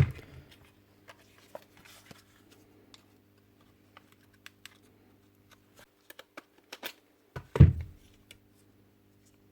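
Small clicks and scrapes of a brush holder being prised out of a rotary hammer's motor housing, with a sharp knock at the start and a heavier thump near the end. A faint steady hum runs underneath.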